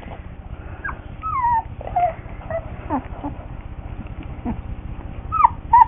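Newborn Australian Shepherd puppies whimpering and squeaking: a string of short, high cries that slide down in pitch, the loudest two near the end.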